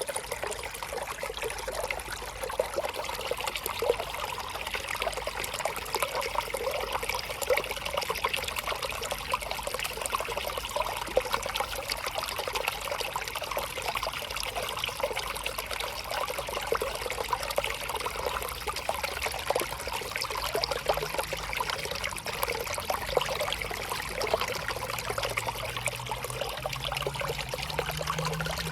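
A small river flowing, with a steady trickling and burbling of water. A faint low hum rises slowly in the last several seconds.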